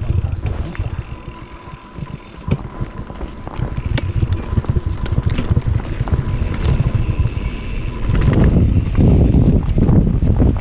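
Mountain bike riding a rough trail: tyre rumble and wind buffeting the microphone, with sharp clicks and rattles from the bike over stones. It gets louder about eight seconds in.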